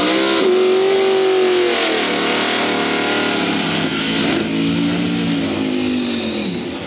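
Drag race car engine at full throttle on a run down the strip. Its note holds high for about two seconds, then drops in pitch and holds lower, and drops again near the end as the sound fades.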